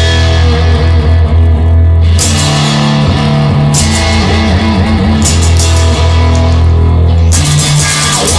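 Instrumental rock music led by guitar, over a steady low bass line, with no singing.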